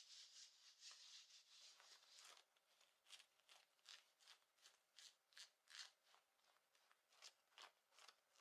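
Faint scratching of fingernails on clothing fabric: a continuous quick scratching for about the first two seconds, then separate short scratches, about two a second.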